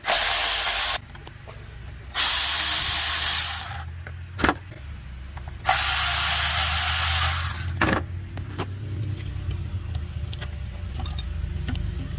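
Milwaukee cordless ratchet whirring in three runs, about one, one and a half and two seconds long, as it backs off the screw of a coolant hose clamp, with a couple of sharp clicks between. A low steady rumble runs underneath from about two seconds in.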